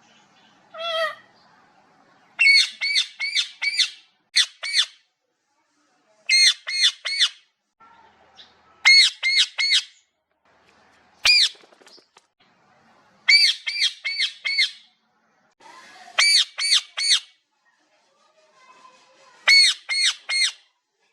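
A parrot squawking in repeated bursts, most of them three or four sharp, high calls in quick succession, with pauses of one to two seconds between bursts. About a second in there is a single falling call.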